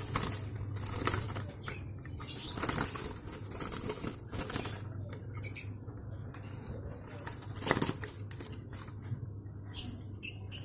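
A wild-caught yellow-vented bulbul (trucukan) flapping and fluttering in its wooden cage, startled by a hand at the cage, with light clicks and rattles as a plastic feed cup is fitted against the bars. The bird is still untamed.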